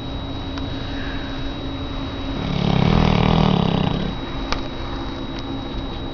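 Large Labrador retriever snoring: one long, loud snore swells up a little over two seconds in and fades about a second and a half later.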